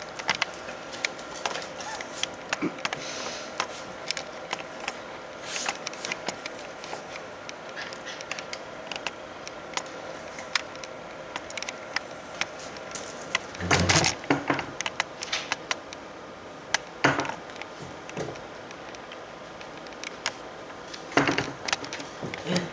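A small dog moving about on a concrete floor and a chair, making scattered light clicks and knocks. There are three louder thumps, one a little past the middle and two more later, over a steady hum.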